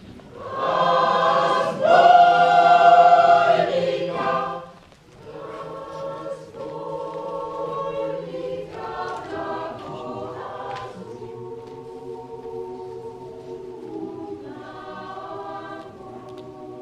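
Mixed choir of men's and women's voices singing: a loud phrase that breaks off about five seconds in, then softer held chords.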